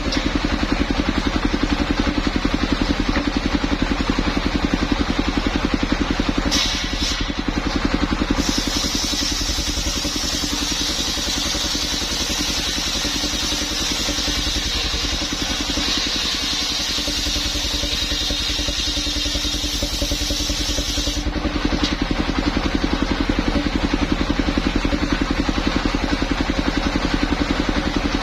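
Engine-driven mobile circular saw machine running steadily. From about eight seconds in until about twenty-one seconds, a higher, harsher hiss joins as the blade cuts through a coconut trunk.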